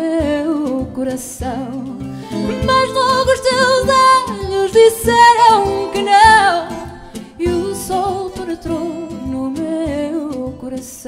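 Fado sung by a woman with wide vibrato over Portuguese guitar, guitars and hand percussion keeping a steady beat. Her voice swells loudest midway through, then eases back to the plucked strings.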